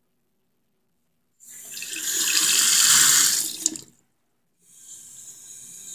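Tap water running from a faucet into a basin, splashing onto a small plastic doll. It starts about a second and a half in and stops abruptly just before four seconds. It comes back quieter near the end.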